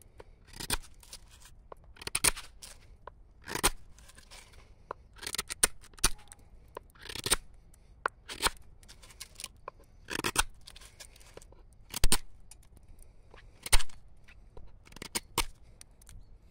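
Repeated short, sharp scraping strokes, about one every one to two seconds, some coming as quick doubles, the loudest two near the end.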